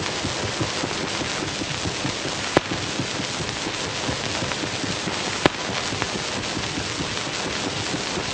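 Steady dense crackling hiss, with two sharp clicks about three seconds apart.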